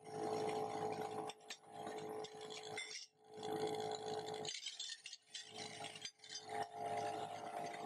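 Flat sheet-metal parts rattling, clinking and sliding along a felt-lined conveying tray, over a steady hum. The sound drops out briefly a few times.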